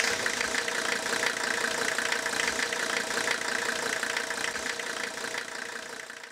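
An engine idling with a steady run of rapid ticks, fading out near the end.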